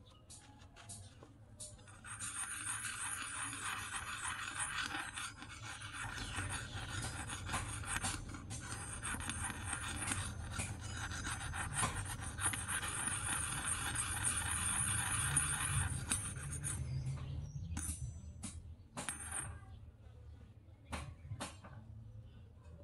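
Hot oil sizzling and crackling in a small steel wok, starting about two seconds in and dying away near the end, with a metal ladle scraping and clinking against the wok. A few separate sharp taps of metal on the wok follow.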